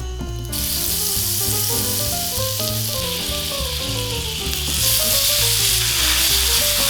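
Drained angel hair pasta frying in butter in a hot wok: a steady sizzle that starts about half a second in and gets louder about five seconds in. Background music with a stepping melody plays underneath.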